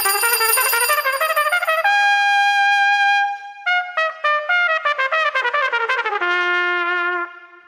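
Solo trumpet playing a brass-band melody: a quick rising run of notes, a long held high note, then a fast run of descending notes ending on a held low note, with a brief break near the end.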